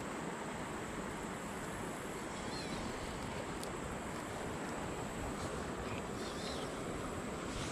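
Steady rushing of shallow creek water running over the bed, with two faint high chirps about a third of the way in and near the end.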